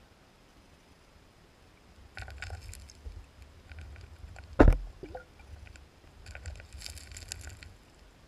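Stream water heard through a half-submerged camera: a low rumble with patches of crackling clicks, and one loud thump about four and a half seconds in.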